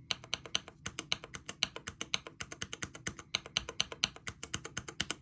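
Fast typing on a mechanical keyboard with tactile switches: a quick, unbroken run of key clacks, several strokes a second.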